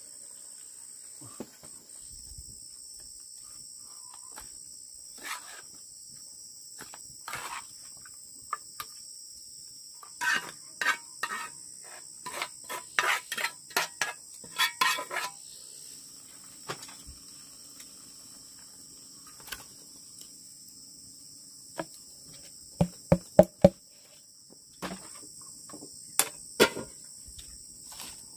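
A steady high-pitched drone of insects, with a metal spatula scraping and clinking against a frying pan in quick strokes about halfway through as food is scraped out, then a few sharp metal knocks of the pan near the end.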